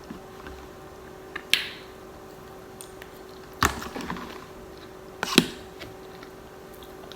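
A few sharp clicks and knocks from a stuffed clam in its shell being handled for eating, three of them about two seconds apart, the last one doubled, over a steady faint hum.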